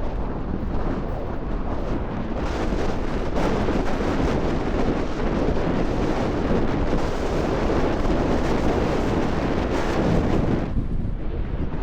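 Strong gusting wind buffeting an action camera's built-in microphone: a heavy, rumbling noise that grows stronger a couple of seconds in and thins out near the end.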